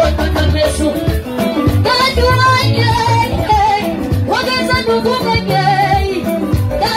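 Live band playing dance music on drum kit and guitars, with a steady beat. A singer's voice comes in about two seconds in and again a little past four seconds.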